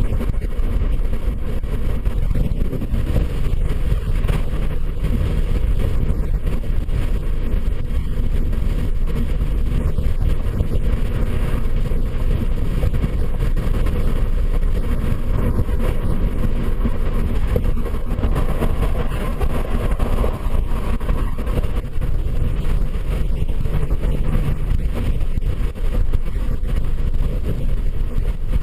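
A vehicle's engine running steadily, with a continuous low rumble.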